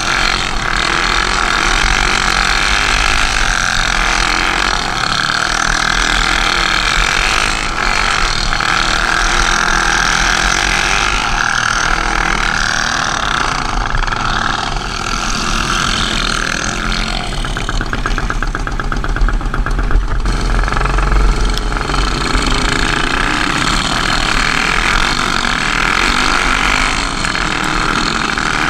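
Racing go-kart engine running hard at race speed on a dirt oval, heard close from the kart, steady and loud throughout, with a rapid pulsing buzz standing out a little past halfway.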